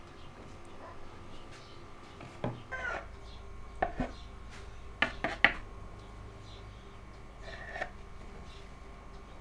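A kitchen knife knocking against a floured wooden board as it cuts dough: a handful of sharp taps bunched in the middle, the loudest a few seconds in.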